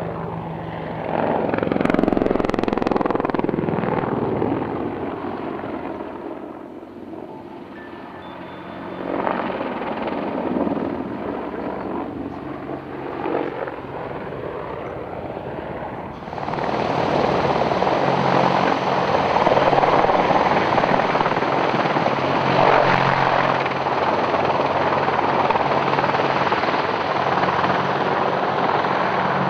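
Apache AH1 attack helicopter flying display manoeuvres, its main rotor and twin turboshaft engines running. The sound swells and fades during the first half, then turns suddenly louder and fuller about halfway through.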